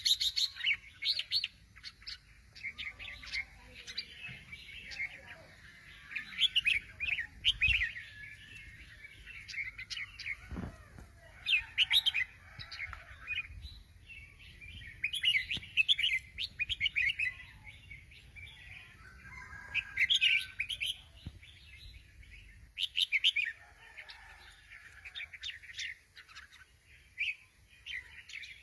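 Red-whiskered bulbul singing: bursts of quick, bright chirping phrases that come every couple of seconds with short pauses between.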